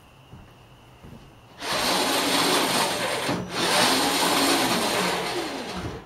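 A Power Wheels ride-on truck's electric rear drive motors and gearboxes, one per wheel, spinning the rear tires under remote control. They start up sharply about a second and a half in and run with a loud, grinding whine whose pitch shifts with speed. They stop for a moment after about two seconds, run again for about two and a half seconds, and then stop.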